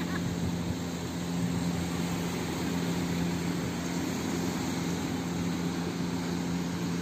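Small boat engine idling steadily at one unchanging pitch, over the wash of small waves on the beach.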